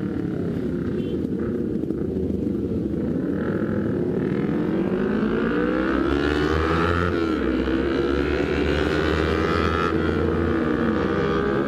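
Kawasaki Ninja sport bike's engine heard from the rider's seat, pulling away and rising in pitch through the revs, dipping at a shift about seven seconds in, then holding and easing off near the end. A low wind rumble builds as speed picks up.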